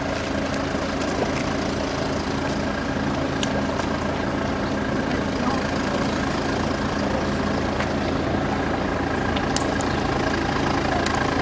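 A steady low mechanical hum, even and unchanging, with two faint clicks, one a few seconds in and one near the end.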